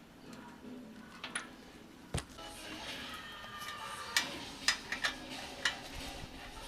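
Tools and motorcycle parts being handled during work on a bike: a series of separate sharp clicks and knocks, one about two seconds in and a quicker cluster in the second half.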